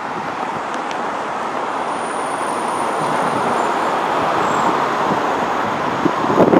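Road traffic on a city boulevard: a steady rush of car tyres and engines that slowly grows louder as vehicles drive past close by.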